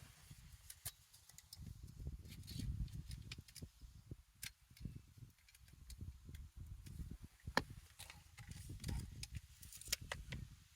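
Faint scattered clicks and knocks of tools and metal parts being handled, over an uneven low rumble; a couple of sharper knocks stand out, about seven and a half seconds in and near the end. The router is not yet running.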